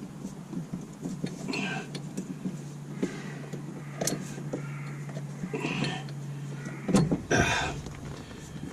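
Metal hand tools clinking and clicking as they are picked up and handled, with a few brief rustles. A faint steady low hum stops about seven seconds in.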